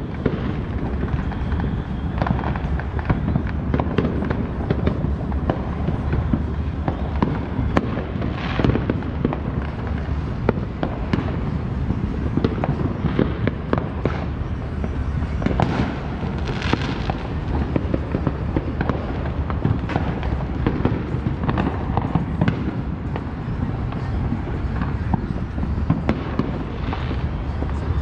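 Fireworks and firecrackers going off continuously, many overlapping pops and bangs at irregular intervals over a steady low background din.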